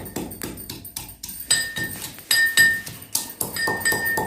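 Pestle pounding tea spices in a mortar (khalbatta): a run of irregular strikes, a few a second, each with a short ringing clink.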